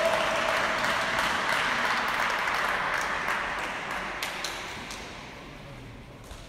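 Audience applause dying away over about five seconds, leaving a few scattered single claps.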